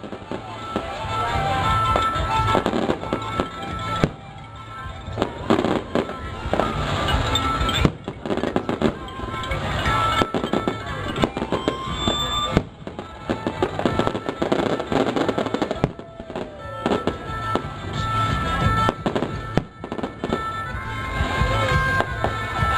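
Fireworks and firecrackers going off in rapid, irregular cracks and pops, over music playing.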